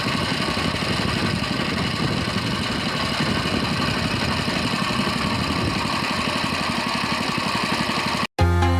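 Boat engine running steadily with a dense low rumble; near the end it cuts off abruptly and loud electronic music with a steady beat begins.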